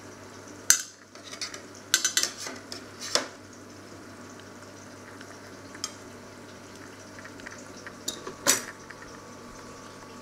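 Metal kitchen tongs clinking against a stainless-steel perforated steamer insert while lifting out steamed asparagus: a series of sharp metallic clinks, several in the first few seconds and two more near the end, over a steady low hiss.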